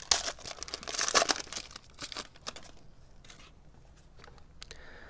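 Foil wrapper of a trading-card pack crinkling and tearing as it is opened, a dense run of crackles for the first couple of seconds. After that come only a few faint clicks as the stack of cards is handled.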